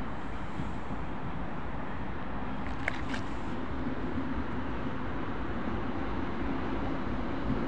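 ChME3 diesel shunting locomotive approaching, running light, its engine drone low and growing louder toward the end. A brief high squeak about three seconds in.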